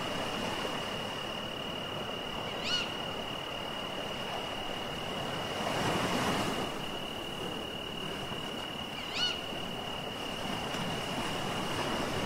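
Night-time seashore ambience: a steady high-pitched insect drone, with surf washing in once in the middle and again near the end, and a short rising call heard twice.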